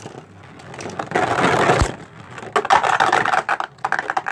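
Two Beyblade Burst spinning tops, Spryzen Requiem and Revive Phoenix, spinning and clashing in a plastic stadium. Rapid clacking hits sound over a scraping whir of the tips on the stadium floor.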